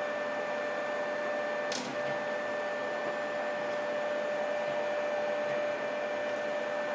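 3D printer running with a steady whine from its motors over a soft whir, and a single sharp click about two seconds in.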